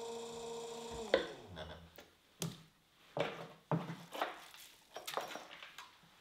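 Electric pottery wheel's motor hum, a steady tone, which falls in pitch and dies away about a second in as the wheel is switched off and spins down. Then come a few light knocks and clatters of things being handled around the wheel.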